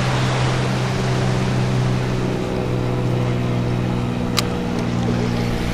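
Steady low hum of a motorboat engine running at a constant speed, over a wash of wind and water noise, with one sharp click about four seconds in.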